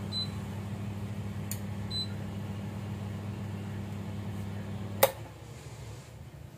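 Steady electrical mains hum from the inverter air-conditioner board being powered up on the bench, with two faint short high beeps in the first two seconds. About five seconds in comes a single sharp click, and the hum drops away.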